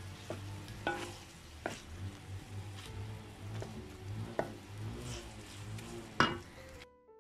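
Wooden spatula stirring and tossing egg noodles in a metal wok over the heat, the food sizzling, with a sharp clack of the spatula against the wok every second or so. The loudest clack comes near the end, and the sound cuts off abruptly just before the end.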